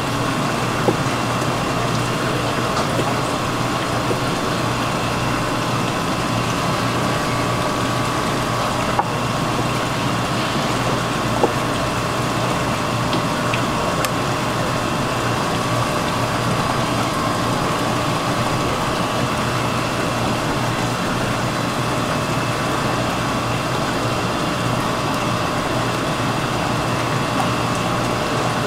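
Steady rushing hiss and hum with a few faint tones held throughout, broken by a few isolated sharp clicks.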